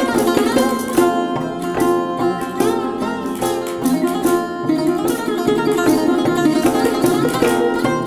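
Music of plucked string instruments, the sarod and geomungo, playing a dense run of quickly picked notes, with some notes sliding in pitch.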